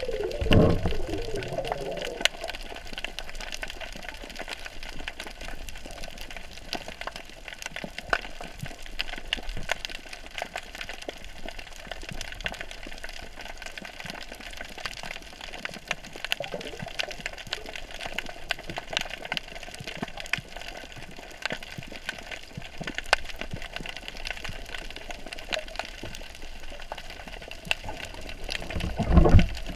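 Underwater ambience picked up by a submerged camera: a steady hiss scattered with many faint clicks. There is a rush of water near the start and again near the end.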